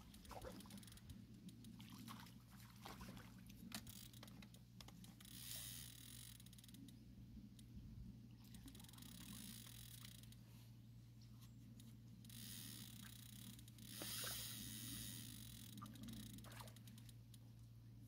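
Faint splashing of a hooked carp thrashing at the water's surface as it is played in, loudest twice, about a third of the way in and again near the end. A steady low hum and a few faint clicks lie underneath.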